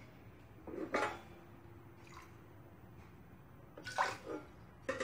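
Faint water sounds from water just poured into a wok, with two short sounds, about a second in and near four seconds.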